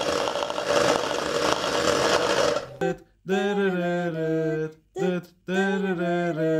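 Electric hand mixer whisking egg yolk and mustard in a stainless steel bowl, running steadily until it stops a little under three seconds in. After a brief pause, a voice sings long held notes.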